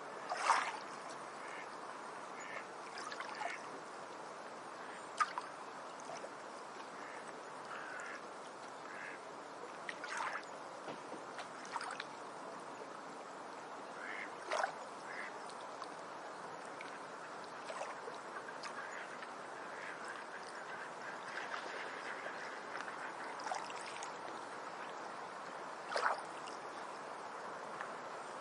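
Ducks quacking in short calls now and then over a steady background hiss, the loudest call about half a second in and another near the end.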